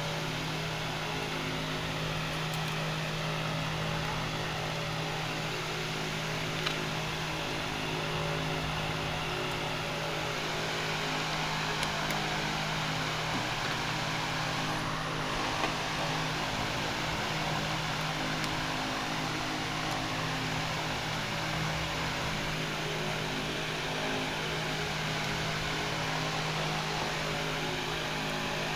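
Steady mechanical hum with an even hiss over it, unchanging throughout, like a running fan or similar machine, with a few faint ticks.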